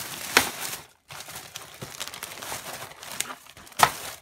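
Plastic packaging wrap crinkling and rustling as it is handled, with a short pause after about a second and two sharp, louder crackles, the last near the end.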